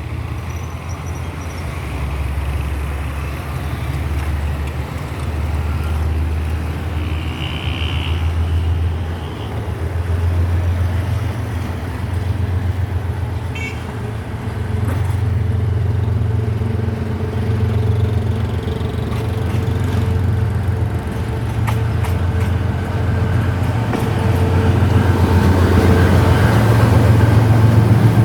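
Diesel locomotive engine running with a heavy, pulsing low rumble as a passenger train pulls out of the station, growing louder over the last few seconds.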